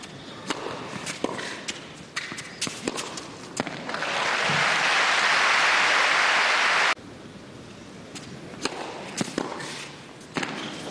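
Tennis rally: sharp pops of racquets striking the ball and the ball bouncing. About four seconds in comes a burst of crowd applause that cuts off abruptly near seven seconds, and then more ball strikes follow.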